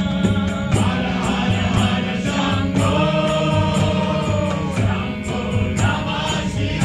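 Devotional kirtan: a group chanting together over a steady harmonium drone, with a mridanga drum keeping a steady beat.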